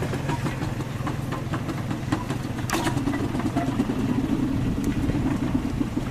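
An engine running steadily at idle, a low even drone, with a few light clicks and one sharper click a little before the middle.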